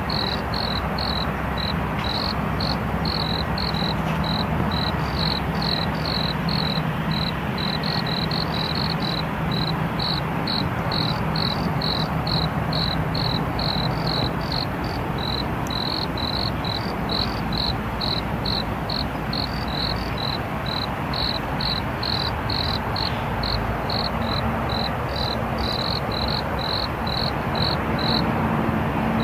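A cricket chirping steadily, in even short pulses about two a second, over a steady low background hum.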